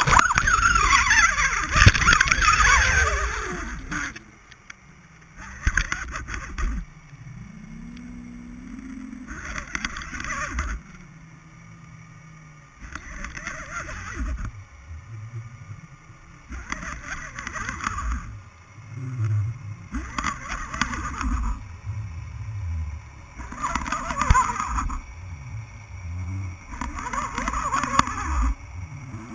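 Muffled underwater noise through a GoPro housing on a fishing line: surges of hissing water come in bursts every few seconds with dull low knocks as the rig moves, and a low wavering hum drifts up and down in the middle.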